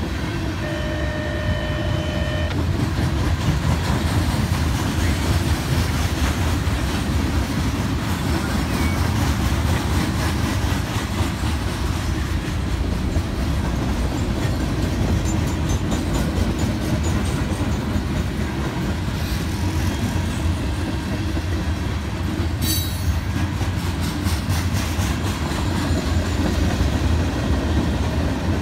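Freight cars, tank cars, hoppers and boxcars, rolling steadily past: a continuous low rumble of wheels on rail with clacking over the joints. A brief whine near the start and a short high squeal about three-quarters of the way through.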